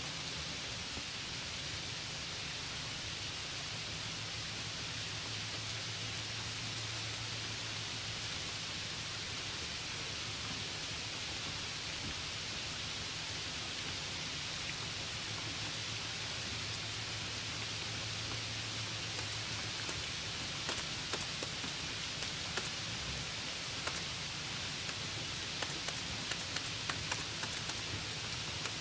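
Steady hissing noise with a low hum beneath it, and scattered sharp ticks from about twenty seconds in.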